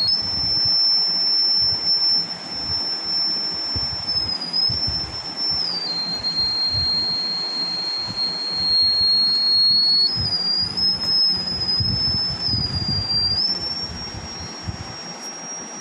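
Rain-alarm buzzer sounding a continuous high-pitched tone, the sign that water on the rain-sensor plate has set the alarm off. The pitch steps up and down several times.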